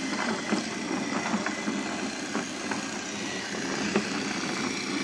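Battery-powered toy Thomas engine's small electric motor and gearbox whirring steadily as it pulls a train of toy cars along plastic track, with a few light clicks scattered through.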